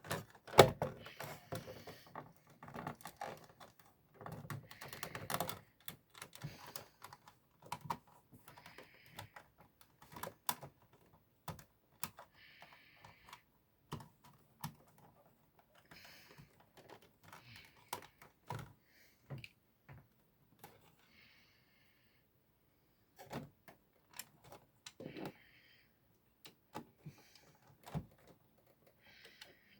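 Parts of an original Xbox being handled and fitted: scattered small clicks, taps and knocks of plastic and metal, with short scraping rustles in between and a quiet pause about two-thirds of the way through.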